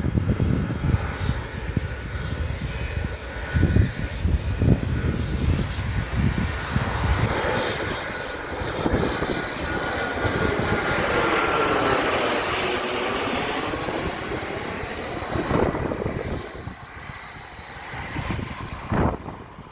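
Airliner's engines swelling as it passes close overhead, peaking about two-thirds of the way through and then fading, with a faint whine that drops slightly in pitch as it goes by. Wind buffets the microphone in the first several seconds.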